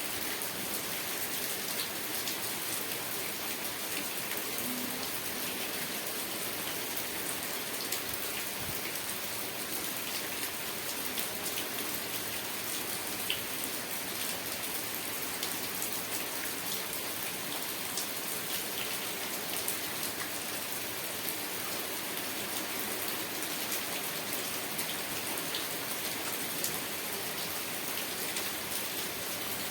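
Steady rain falling: an even hiss with scattered sharper ticks of single drops striking.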